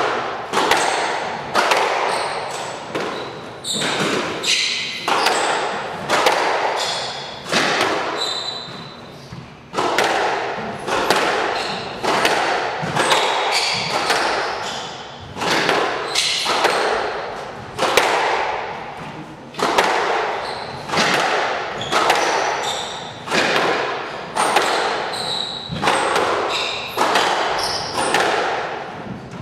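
Squash rally: the ball cracking off rackets and the walls about once a second, each hit echoing in the court, with brief high shoe squeaks on the floor between hits.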